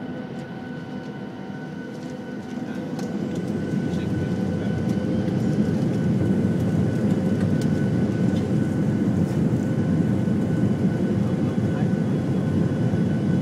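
Boeing 737 CFM56 turbofan engines heard from inside the cabin over the wing, spooling up for takeoff. A low rumble carries a few steady whining tones, and it grows louder from about two seconds in, then holds steady.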